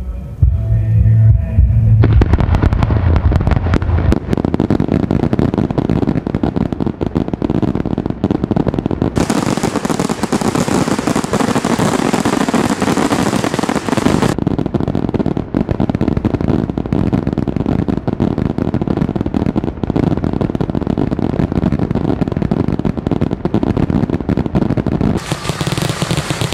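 Fireworks display: a dense, continuous run of crackles, pops and bangs.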